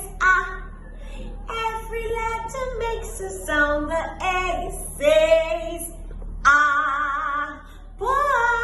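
A high voice singing a melody in short phrases, ending on long held notes with vibrato.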